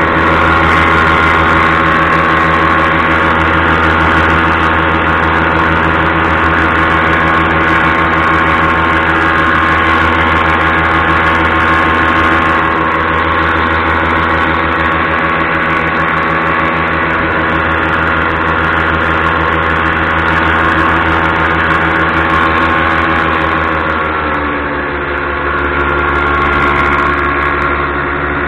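Paramotor engine and propeller running steadily in flight, a loud, even drone. Near the end the pitch drops as the engine slows.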